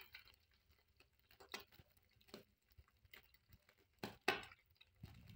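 Ham slices frying in hot oil in a pan: quiet, irregular crackling and spitting of the oil, with the loudest pops a little after four seconds in.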